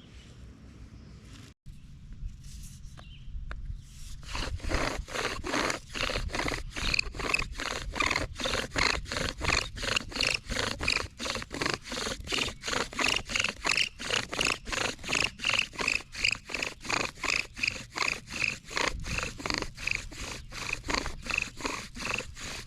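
Bow drill in use: the spindle sawed back and forth in a tree-of-paradise fireboard, each bow stroke a rasping squeak, about two strokes a second, starting about four seconds in.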